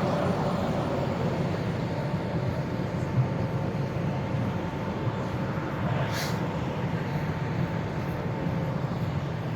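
Steady low rumble of city traffic and construction machinery, with a faint steady whine over it and a brief high hiss about six seconds in.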